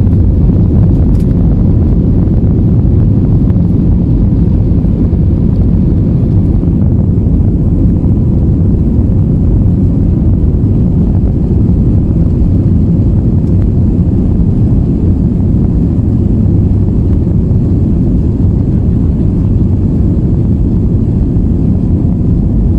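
Airliner accelerating down the runway on its takeoff roll, heard from inside the passenger cabin: the engines and the wheels on the runway make a loud, steady low rumble.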